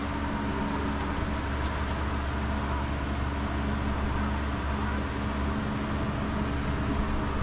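A steady low mechanical hum with a few constant tones, unchanging throughout.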